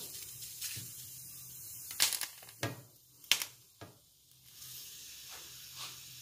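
Light knocks and taps as charred peppers, tomatoes and garlic cloves are turned by hand in a shallow metal roasting pan, about eight separate clicks at uneven intervals, over a faint low hum.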